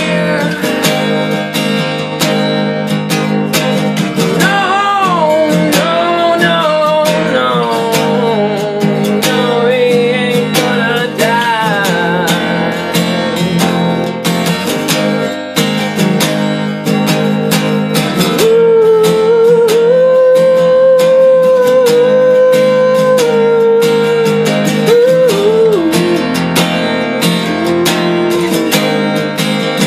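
Acoustic guitar strummed in a steady rhythm, with a man singing a wordless melody over it in long, bending notes.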